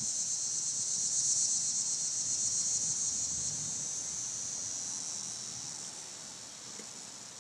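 Steady, high-pitched buzzing of an insect chorus, slowly growing fainter over the last couple of seconds.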